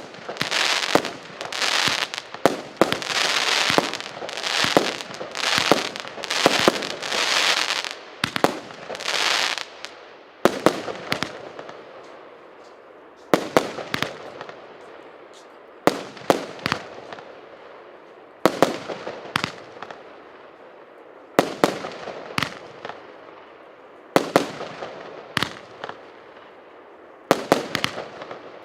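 A 100-shot fireworks cake firing. For about the first ten seconds the shots come quickly, each bang trailing into a fizzing crackle. After that, single loud bangs come every two to three seconds, each followed by a fading crackle.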